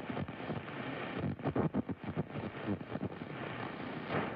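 AM radio hiss and crackle with garbled, chattering splatter bleeding in from adjacent AM stations, what static fans call "monkey chatter". It comes through the radio's limited bandwidth, with no clear words.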